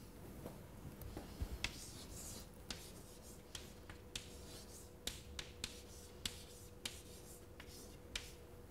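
Chalk writing on a chalkboard: faint, irregular sharp taps of the chalk striking the board, with short scratchy strokes between them.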